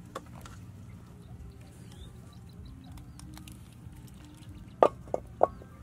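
Metal cooking pots clanking as they are handled: three sharp knocks with a short metallic ring about five seconds in, over a low steady background with faint bird chirps.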